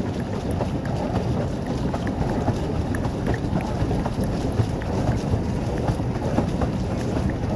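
Steady rush of wind on the microphone mixed with water churned by a pedal boat's paddle wheel, with small scattered splashes.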